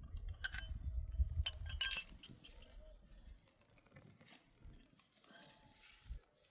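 A few light clinks and taps over a low rumble in the first two seconds, then much quieter.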